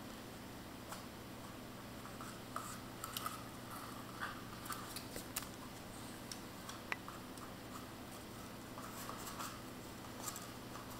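Kitten wrestling and batting a cardboard toilet-roll tube on a tiled floor: light, scattered scratches and taps of cardboard and claws on the tile, with one sharper tick about seven seconds in, over a faint steady hum.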